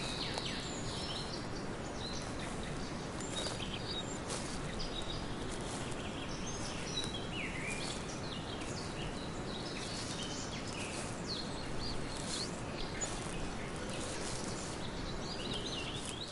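Forest ambience: several birds chirping and calling at irregular intervals over a steady background noise.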